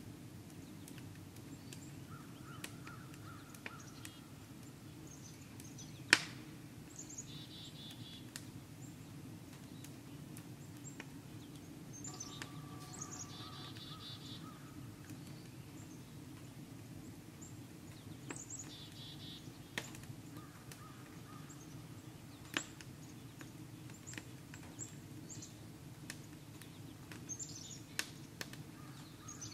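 Wood fire boiling a pan of maple sap: a steady low rushing with scattered crackling clicks and one sharp, loud pop about six seconds in. Small birds chirp and call now and then.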